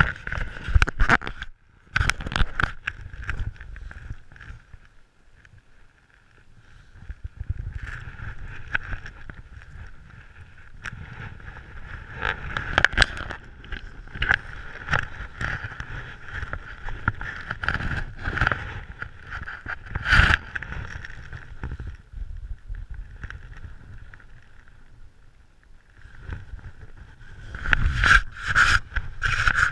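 Handling noise from a body-mounted action camera, with wingsuit fabric and gear rubbing and knocking against its microphone in irregular scrapes and thumps. It eases off briefly about five seconds in, then grows busy again near the end.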